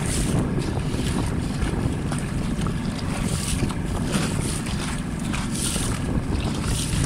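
Wind buffeting the microphone on a small boat under way, a steady low rumbling flutter with water noise beneath it.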